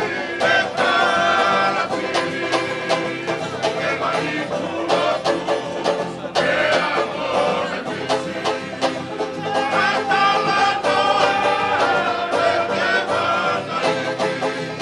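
Live Tongan string band playing tau'olunga dance music: banjo and guitars strummed while a group of men sing.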